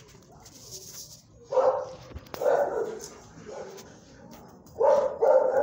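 A dog barking several times in short bursts with pauses between, the loudest barks about one and a half seconds in and again near the end.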